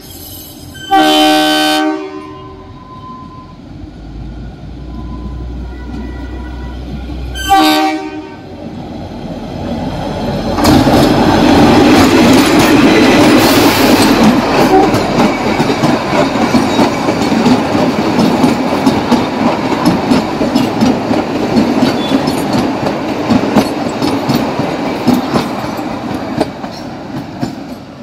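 Kalka–Shimla Railway narrow-gauge diesel locomotive sounding its horn, a loud blast about a second in and a short toot about eight seconds in, its engine rumbling low as it approaches. From about ten seconds the train passes close by, wheels clattering over the rail joints, easing a little toward the end.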